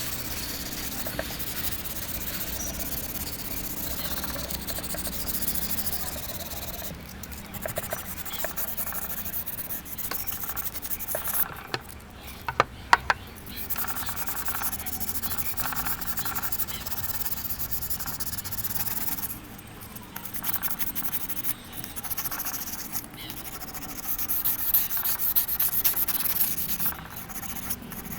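Sandpaper rubbing back and forth on the steel blades of a pair of grass shears, scouring off surface rust. There are a few sharp metallic clicks about halfway through.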